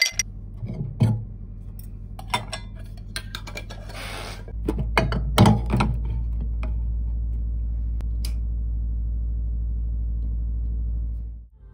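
A few light knocks and clinks as a glass candle jar is handled on a shelf, over a steady low hum that gets louder about four and a half seconds in and stops just before the end.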